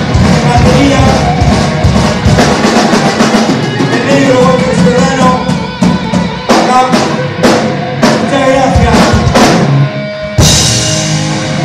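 Live rock trio of electric guitar, electric bass and drum kit playing loud. Near the end of the song the band hits a run of accented stops together, and about ten seconds in a final crash rings out to close it.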